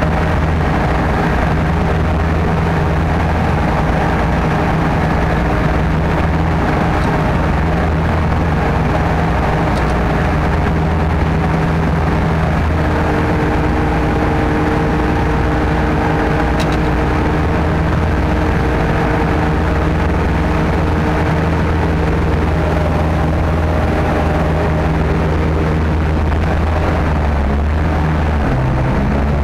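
Sherp ATV's Kubota diesel engine running steadily under load, heard from inside the cab as it wades through a muddy pond. Its note shifts a little about halfway through.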